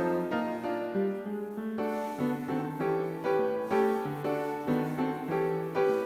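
Background music: a gentle piano melody with held notes.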